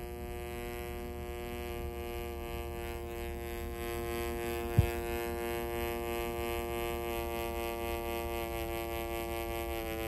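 A buzzy 120 Hz test tone, passed through a Krohn-Hite 3202 analog filter and played over a small desktop speaker, wavering with a slow beating as its frequency is detuned. The beating is a fault of this filter unit, which the owner thinks comes from something at 60 Hz beating against the signal. One short click about five seconds in.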